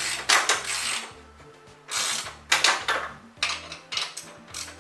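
Ratchet spanner working in a run of back-and-forth strokes, each a short burst of clicking, as the exhaust joint clamps are tightened.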